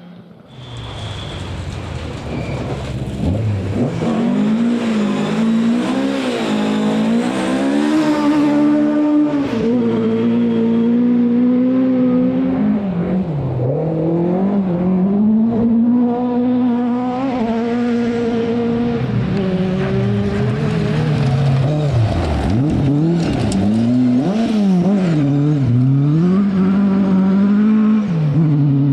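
Rally car engine coming in from quiet and then held loud, revving hard: the pitch climbs and drops again and again as it shifts gear and lifts off through the stage.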